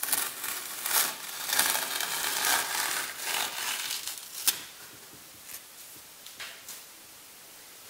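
Masking tape being peeled off the edge of a painted canvas: a rasping, tearing strip-off for about four seconds, with a sharp snap about four and a half seconds in, then quiet.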